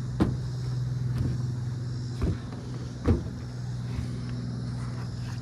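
A small motor running with a steady low hum, with three short knocks on top, at about a quarter second, two seconds and three seconds in.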